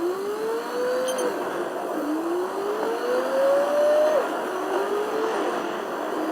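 Car engine accelerating through the gears: its pitch climbs, drops sharply at each upshift about one and four seconds in, climbs briefly again, then settles to a steady run.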